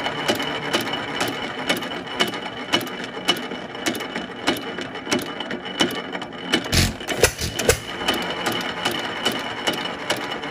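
1923 Fairbanks Morse 3 hp 'Z' hit-and-miss engine running, its pushrod, blocking lever and governor clicking in a steady rhythm, with a louder low thump about seven seconds in.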